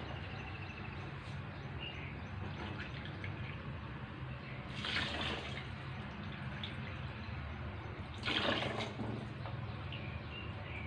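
Water poured into an aluminium pot of rice, red lentils and vegetables, splashing in twice, about three seconds apart, over a steady low hum.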